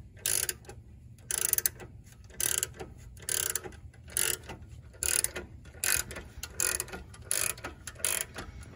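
Ratcheting wrench clicking in short runs, about ten strokes at roughly one a second. It is turning the nut on a bushing press tool's threaded rod, drawing a new rear trailing-arm bushing into its bore.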